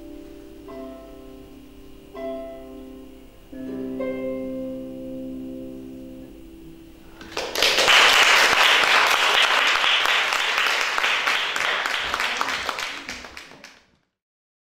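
Harp playing a few final plucked chords that ring out, then audience applause starting about halfway through and cutting off suddenly near the end.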